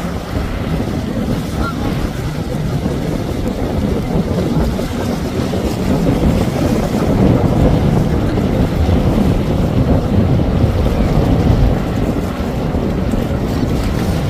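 Steady rush of wind on the microphone mixed with waves and boat engine noise from the inlet, a little louder through the middle.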